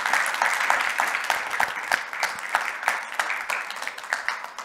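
Audience applauding with dense, steady clapping that gradually fades toward the end.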